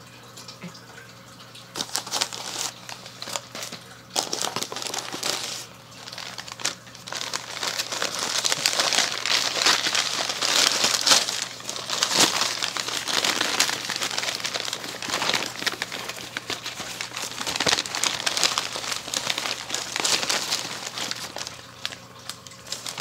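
Packing material crinkling and rustling in uneven bursts as it is handled and pulled out of a cardboard shipping box, starting about two seconds in and easing off near the end.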